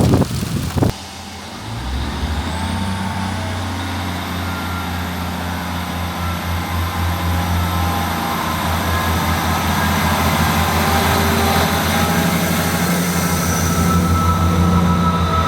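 Class 158 diesel multiple unit running at the station, a steady low throbbing drone from its diesel engines that slowly grows louder, with a faint high whine rising a couple of seconds in. A short burst of wind noise on the microphone comes first.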